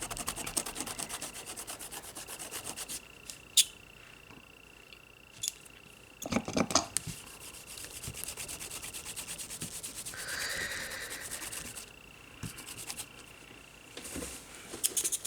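Fast rubbing strokes, several a second, in two spells, with a few light clicks and taps between them. A faint steady high whine sits underneath.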